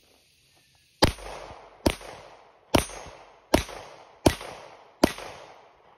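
Six 9mm shots from a Glock 17 pistol, fired at a steady pace a little under a second apart, starting about a second in. Each shot is followed by a short tail that fades before the next.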